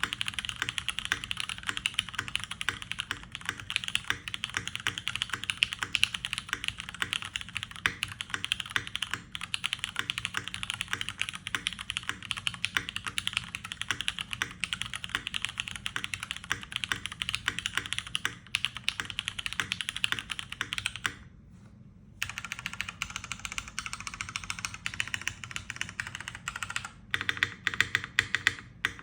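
Continuous fast typing on a UTD 360C mechanical keyboard with Cherry MX Brown tactile switches, a dense patter of key presses. The typing pauses for about a second a little past two-thirds of the way through, then carries on.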